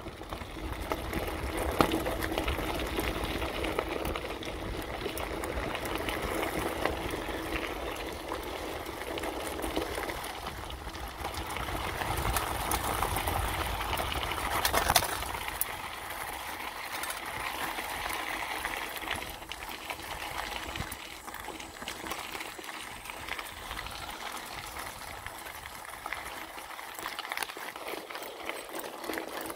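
Mountain bike rolling along a forest trail, its tyres crunching over packed dirt and then gravel in a steady hiss with small rattles and ticks. A low rumble is strongest in the first half and fades later on.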